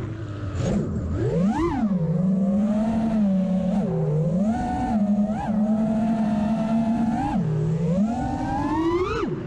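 A 5-inch FPV quadcopter's 2207 brushless motors and propellers whining, the pitch rising and falling with the throttle: a steady hum broken by several quick throttle punches, the highest near the end.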